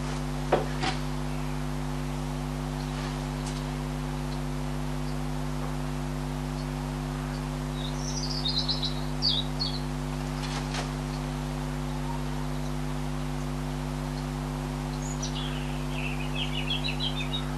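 A steady low hum runs underneath throughout. Over it a small bird chirps in two short bursts, one about eight seconds in and one near the end. There are a couple of faint knocks near the start and around the middle.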